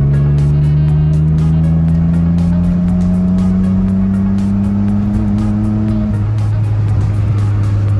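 Straight-piped Mercedes M104 straight-six running under load while driving, its drone rising steadily in pitch, then dropping suddenly about six seconds in as the revs fall, and holding steady at the lower pitch.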